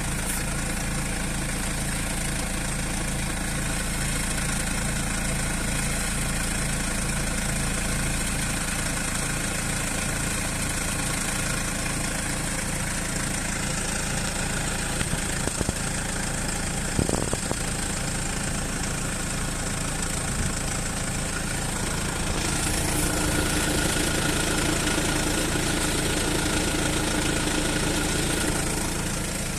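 Mercedes OM651 four-cylinder diesel idling steadily, the odd noise from the front of the car that is being investigated. One short knock sounds about 17 seconds in, and about 22 seconds in a new steady hum joins and the sound grows a little louder.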